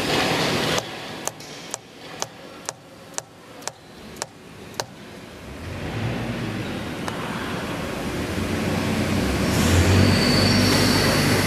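Soft-faced mallet tapping the body of a hydraulic chuck, about eight light taps roughly two a second, as the chuck is nudged to true its runout against a dial indicator. In the second half a steady mechanical noise with a low hum builds up.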